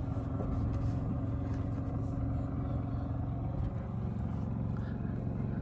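A vehicle engine idling steadily, a low even hum with a fine pulse.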